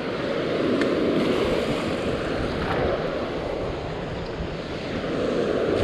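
Ocean surf washing on a beach, a steady rushing noise that swells and eases, with wind buffeting the microphone.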